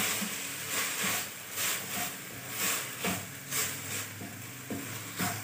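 A plastic spatula stirring and scraping chicken mince around a black wok, in repeated swishing strokes, over a light sizzle of the mince frying.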